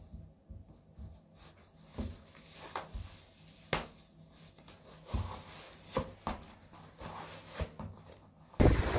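Socks and sneakers being pulled on: cloth rustling with scattered soft taps and thumps of feet and shoes against a hard floor. Near the end it switches abruptly to a loud, steady rush of outdoor wind or street noise.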